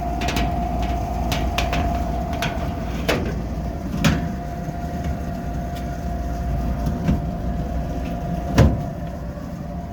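Gas furnace running, its blower and Fasco inducer motor humming steadily with a constant tone. Over it come several sheet-metal clicks and knocks as the furnace's front panel is fitted back on, the loudest near the end.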